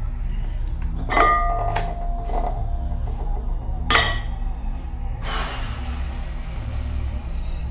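Porcelain soup-tureen lid clinking twice against the tureen: once about a second in, ringing briefly, and again near the four-second mark. A steady hiss follows, over a low hum.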